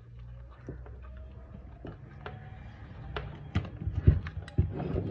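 Hot air gun control module, handpiece and cable being handled on a wooden workbench: irregular taps, knocks and clicks of hard plastic and metal parts, growing busier and louder in the second half.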